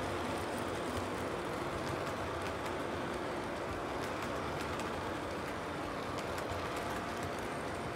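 O scale model train of tank cars rolling along three-rail track: a steady rumble of metal wheels on the rails, with faint scattered clicks.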